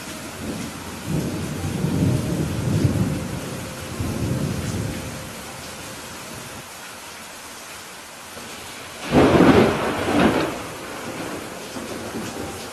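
Steady heavy rain with thunder: a low rolling rumble in the first few seconds, then a sharp, loud thunderclap about nine seconds in that rumbles on for a second or so.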